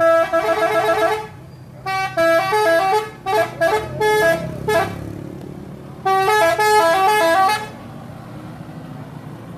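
Telolet bus horn, a set of tuned horns playing a quick stepping melody of alternating notes in three bursts, the middle one longest, over a steady low hum.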